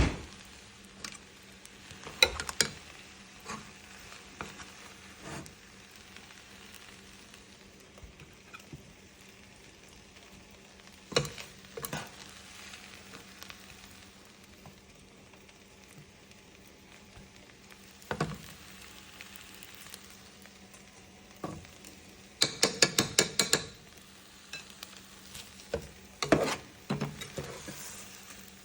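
Fried rice being stir-fried in a pan over a low sizzle, a utensil scraping and knocking against the pan every few seconds, with a quick run of about ten taps a little past two-thirds through.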